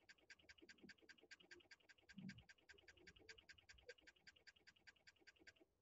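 Faint, rapid, even ticking, about five clicks a second, from a slide's letter-by-letter text animation; it stops abruptly near the end. A soft low thump about two seconds in.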